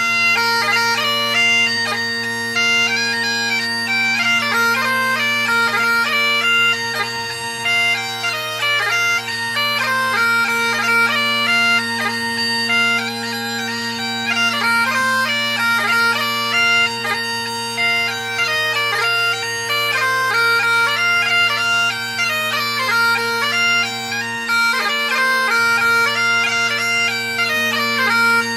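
Bagpipes playing a tune: a steady low drone sounds under the chanter's melody of quick, stepping notes.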